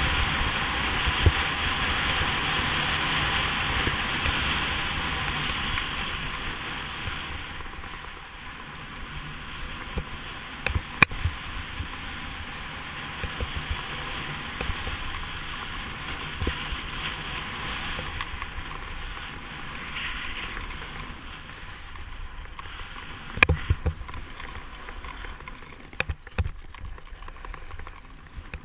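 Sit-ski (monoski) sliding down a groomed slope: a steady rushing hiss of the ski on the snow and the air going past, louder for the first several seconds and then easing off, with a few sharp knocks about the middle and near the end.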